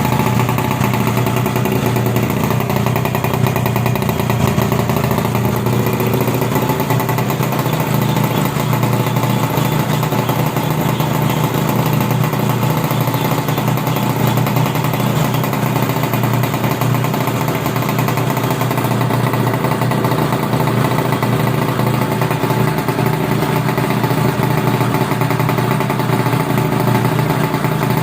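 Kreidler R50's small two-stroke engine running steadily at one even speed during a test run, without revving.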